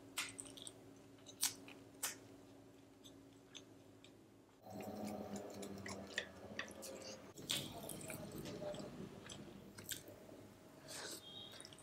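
Faint close-miked eating sounds: wet chewing of chicken biryani with sharp mouth clicks and lip smacks, and a longer stretch of chewing noise from about the middle on.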